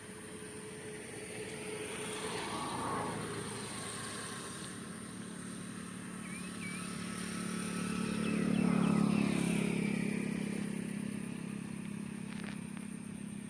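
Motor vehicles passing on a road, their engine hum rising and fading: a lighter one about three seconds in and a louder one peaking around nine seconds in.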